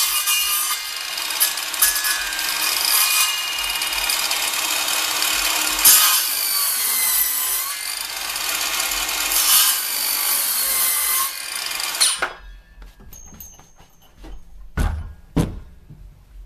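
Bosch 18-volt cordless circular saw running and cutting into a 2x4, clearing out a notch up to a marked line, with its motor whine over the noise of the cut. It stops abruptly about twelve seconds in, and two dull thumps follow a few seconds later.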